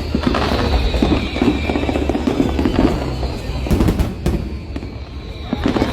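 Fireworks going off in a dense run of low booms and crackles, with a few sharp cracks about four seconds in. Music plays along with them.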